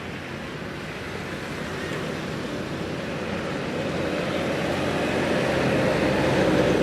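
A motor vehicle going by: a noisy engine rumble that grows steadily louder and peaks near the end.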